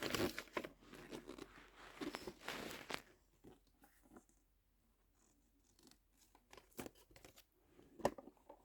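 Faint rustling and small clicks from handling a plastic Mini Brands toy fridge and its packaging. There is a pause of a few seconds in the middle, and a couple of sharp clicks come near the end.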